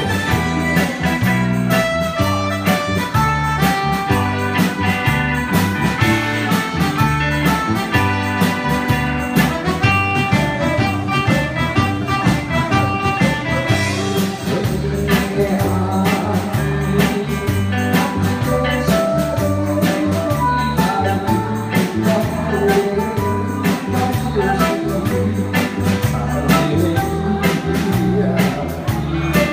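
Live band with guitar and keyboard playing a song over a steady beat, with singers singing into microphones through the PA.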